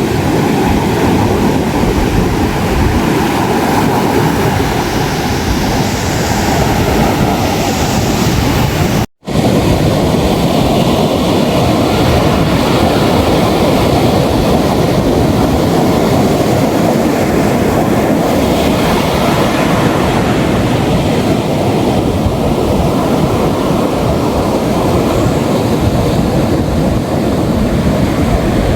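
Ocean surf breaking and washing onto a beach, a steady dense rush heaviest in the low range. The sound cuts out for an instant about nine seconds in.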